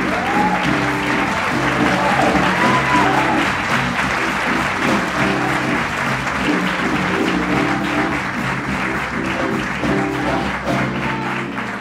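Audience applauding over live string-ensemble music that holds sustained low notes.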